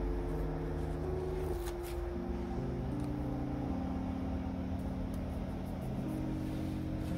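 Soft background music: sustained chords that move to new notes every second or so.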